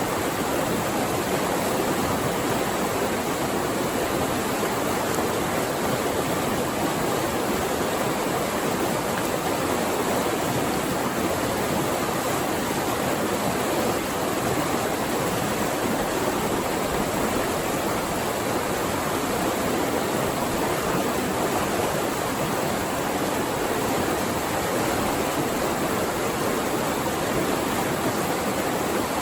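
Flowing water rushing steadily, an even unbroken rush with no separate splashes.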